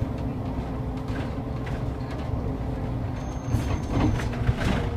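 City bus on the move, heard from inside: steady engine and road rumble with a steady low hum, and a few rattles and knocks about four seconds in.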